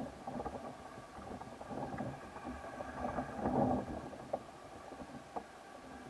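RC truck driving fast over loose dirt, heard from a camera mounted on it: a steady high motor whine over the gritty rush of tyres on dirt, with a few short knocks as it hits bumps.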